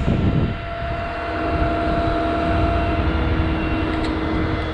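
Crane truck's engine running steadily, with a low rumble and a steady whine on top, as the crane works the cable lift on a concrete septic tank.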